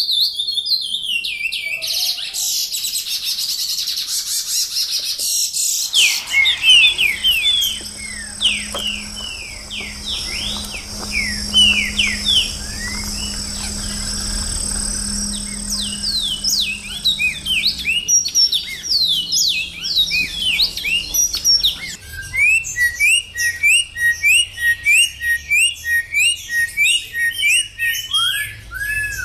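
Caged songbirds singing, one clip after another. First comes a dense high twittering, then a quick run of whistled notes over a low hum. Near the end there is a steady series of short repeated notes, about three a second.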